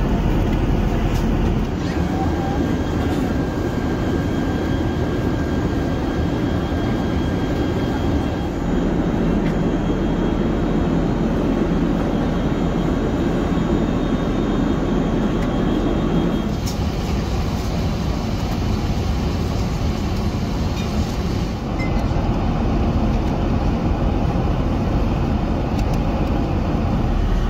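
Steady rushing noise of airflow and engines inside the cabin of an Airbus A380 airliner in cruise, its tone shifting slightly a few times.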